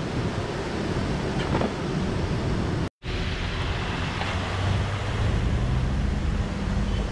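A steady outdoor hiss, broken by a momentary dropout about three seconds in. After the dropout, a motorcycle engine runs at low revs, rolling slowly through mud.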